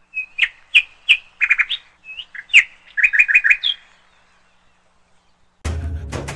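Small bird chirping: a series of short, sharp chirps and quick three- or four-note trills that stop just before four seconds in. After a short silence, music starts near the end.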